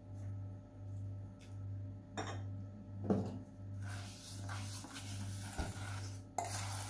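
Stainless steel pot of wet sugar being handled and brought onto a gas stove: a knock about two seconds in and a clatter about three seconds in, rubbing from about four seconds, and a louder clunk near the end. Under it runs a low hum that swells and fades a little faster than once a second.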